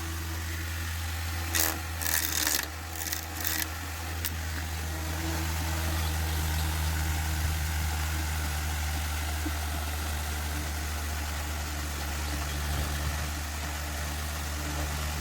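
Small high-speed DC motor of a homemade plastic-bottle toy helicopter running steadily with a low hum. A short burst of rattling noise about two seconds in.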